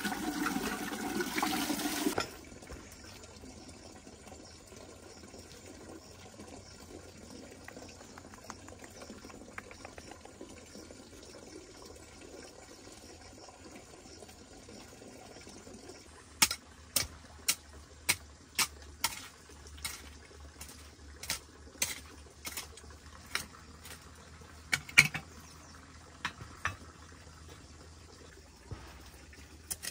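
Water pouring from a metal kettle onto bamboo for about two seconds, then faint. About halfway in, a run of sharp knocks starts, roughly one a second: a hoe chopping into stony clay soil.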